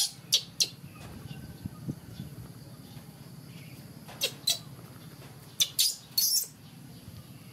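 Baby macaque giving short, shrill squealing cries in little groups: three near the start, two about four seconds in and a cluster around six seconds, over a steady low hum.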